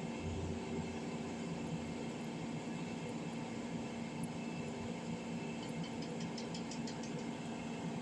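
Steady background hiss with a low electrical hum, and a quick run of faint light ticks about six seconds in.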